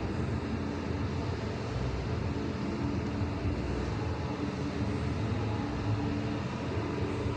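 CD6150-2000 lathe running steadily, a continuous mechanical drone with a low hum.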